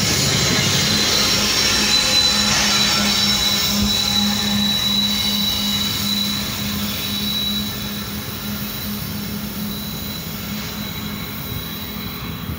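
BNSF diesel-electric freight locomotive passing close and pulling away, its engine running with a steady pulsing drone and a thin high wheel squeal over it, fading after about eight seconds as it recedes.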